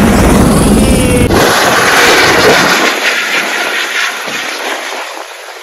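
Helicopter running close by: loud rotor and engine noise. About a second in the deep rumble drops away abruptly, leaving a higher rushing noise that fades toward the end.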